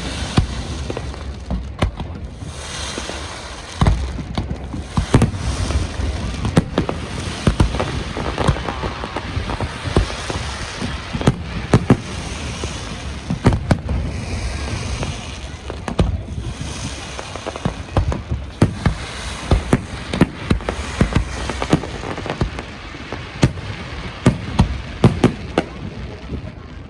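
Fireworks display: a dense, unbroken run of sharp bangs from bursting aerial shells, many in quick succession, with crackling in between.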